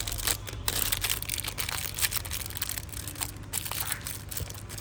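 Plastic wrapping crinkling and tearing in quick irregular crackles as the factory seal is peeled off a boxed Zippo lighter.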